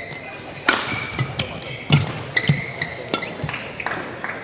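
Badminton rally: several sharp racket hits on the shuttlecock, with short squeaks of players' shoes on the court floor between them.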